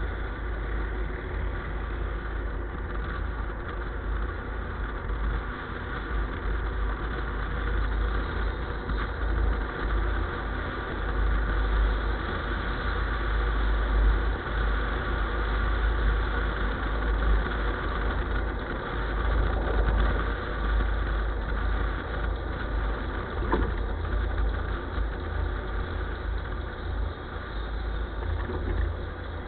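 A vehicle engine running steadily with a low rumble, no distinct events.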